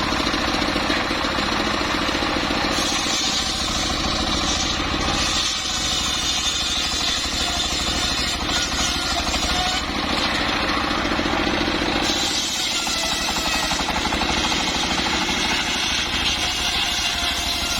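Engine-driven sawmill saw running steadily while sawing timber, its tone shifting a few times as the cut goes on.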